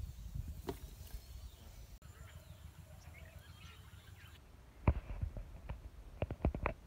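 Faint bird calls over a low rumble, with a single sharp click about five seconds in and a quick run of clicks and taps near the end.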